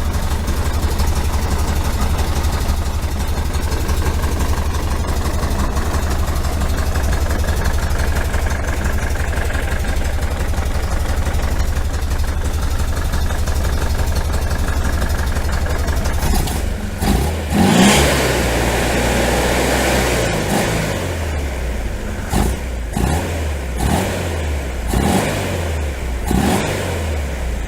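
1973 VW Super Beetle's air-cooled flat-four engine idling steadily, then revved up and down several times over the last ten seconds or so.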